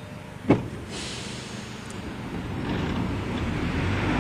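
A single sharp clunk, then the rumble of a vintage electric tram moving off, growing steadily louder.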